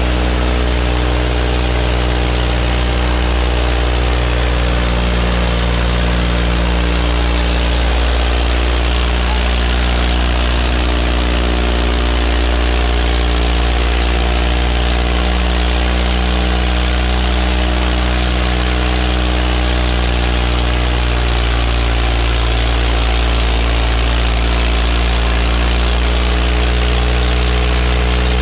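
Swaraj 855 FE tractor's three-cylinder diesel engine running steadily under heavy load, hauling two disc harrows through ploughed soil.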